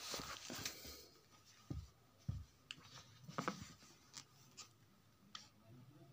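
Faint scuffs and a few soft taps from Red Wing leather work boots with rubber wedge soles shuffling and stepping on a tiled floor, scattered and irregular.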